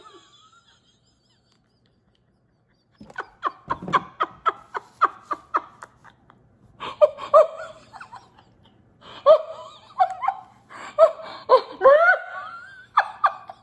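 A woman laughing hard in quick breathy bursts that start about three seconds in, after a short near-silence, and go on in bouts.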